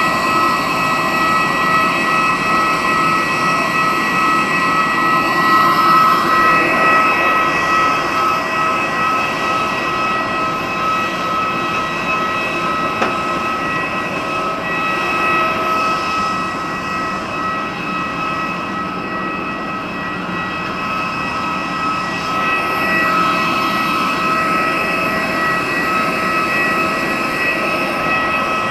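Steady turbine whine from jet airliners on the apron: several high steady tones over a rushing noise, swelling about six seconds in and again a little after twenty seconds.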